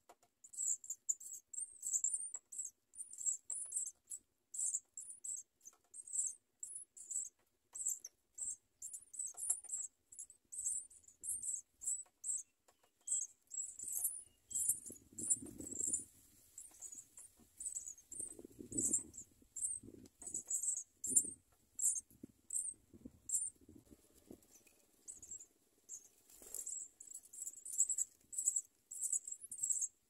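House sparrow nestlings giving rapid, very high-pitched begging cheeps, several short calls a second, with a few soft low thuds around the middle.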